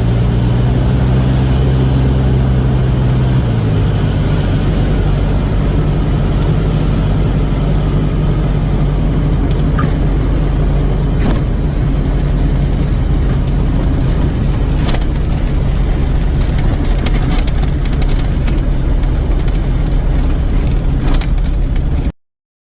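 Propeller engine of a small aircraft running steadily at high power, its pitch stepping down a few seconds in. The sound cuts off suddenly near the end.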